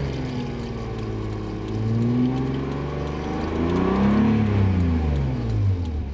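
Car engine being revved, its pitch climbing and falling back twice, in a car that is low on radiator coolant.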